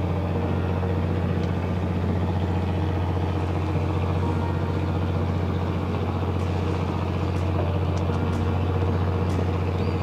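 Fishing boat's engine running steadily, a low even hum, with a few faint ticks in the second half.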